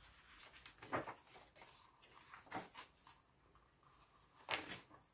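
Pages of a hardback picture book being turned and handled: a few soft, brief paper rustles.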